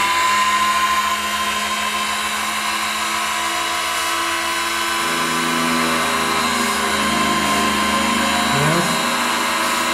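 Multifunction key-duplicating machine running, its milling cutter spinning with a steady whine as a key is passed lightly along it to cut the bitting. The tone shifts about halfway through, and a wavering sound comes in near the end.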